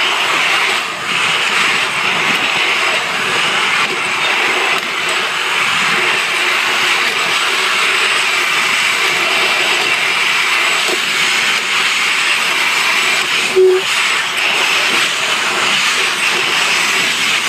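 Rail zip line trolley rolling along its metal rail: a loud, steady rushing hiss that runs on without a break, with one brief tone about three-quarters of the way through.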